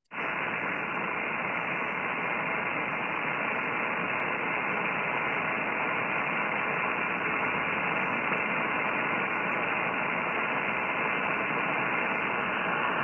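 Ham radio receiver's speaker output on the 40-meter band, fed by a 3-foot wire antenna: a steady hiss of static with no tones to be heard. Weak WSPR signals buried in this noise are decoded by the software though the ear cannot pick them out.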